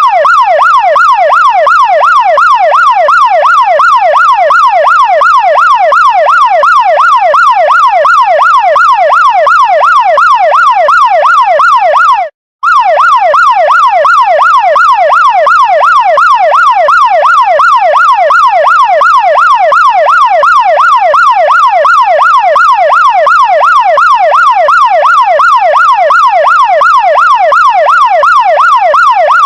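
Chinese fire engine siren in a fast yelp, its pitch sweeping up and down about three times a second. It cuts out for a fraction of a second about twelve seconds in, then resumes.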